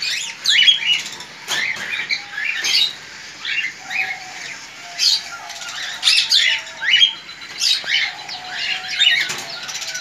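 Caged pet birds, cockatiels among them, chirping and calling over one another in quick, short notes that rise and fall in pitch.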